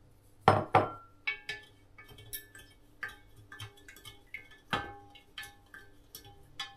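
A spoon clinking against the side of a container as sugar is stirred into hot brewed tea for kombucha: irregular small clinks that ring briefly. There are two sharper knocks about half a second in and another near the middle.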